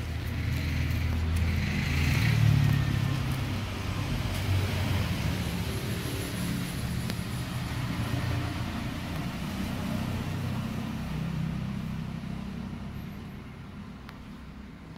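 Low rumble of a motor vehicle engine running, swelling in the first few seconds and fading away near the end.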